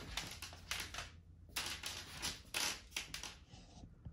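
Irregular light crackling and clicking of packaging being handled, foam and cardboard shifted about in the open box.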